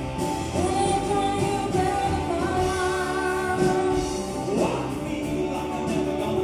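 A live band with electric guitars, keyboard and drums playing, with a singer over it, heard from the audience floor of a concert hall.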